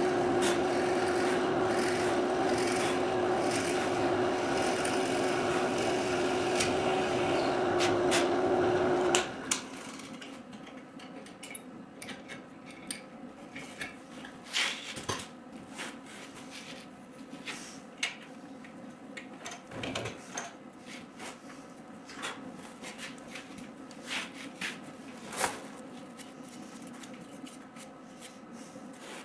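Benchtop drill press running with a steady hum while drilling a clamped workpiece; it stops abruptly about nine seconds in. After that come scattered light clicks and knocks of the workpiece and tools being handled.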